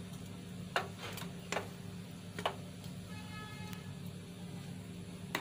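A wooden spoon stirring curry in a metal pot, giving a handful of sharp, separate clicks and knocks against the pot, over a steady low hum.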